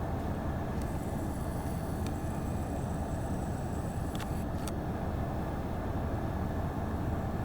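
Ford Escape driving along a desert dirt road: a steady low rumble of tyres and engine, with a few faint ticks.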